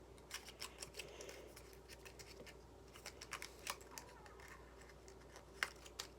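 Faint clicks and light scratching as a tiny plastic-and-cardboard Mini Brands toy box is opened and handled, in small scattered clusters with a sharper click near the end.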